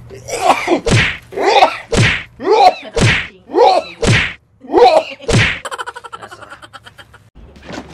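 A man in a coughing fit: about ten hard coughs in quick succession, muffled by the shirt and then the hands held over his mouth, trailing off into a faint rasp near the end.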